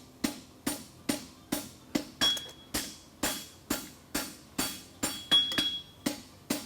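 Hand-hammer blows on an aluminum bar shoe held on the anvil's flat face, a steady beat of about two strikes a second. Some strikes leave a short, high ring from the anvil.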